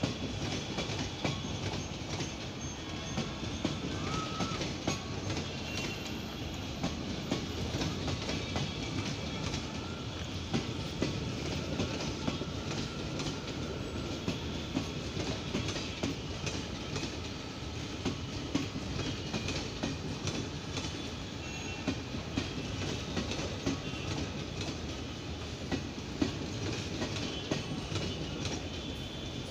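Passenger train coaches rolling steadily past, their steel wheels clicking over rail joints in a continuous clatter over a steady rumble, with a faint wheel squeal here and there.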